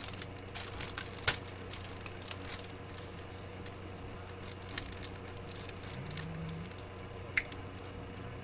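Scattered light clicks and taps from handling a desoldering gun's solder canister as it is emptied out, over a steady low hum. The sharpest click comes about a second in, another near the end.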